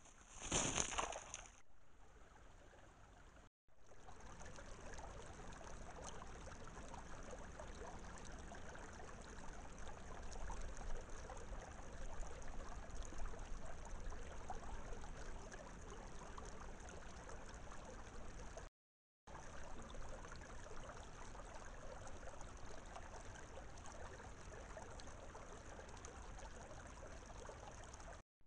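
Faint steady outdoor background hiss picked up by a trail camera's microphone, with a higher electronic hiss above it. A short louder rustle comes about half a second in, and the sound drops out briefly twice where the clips change.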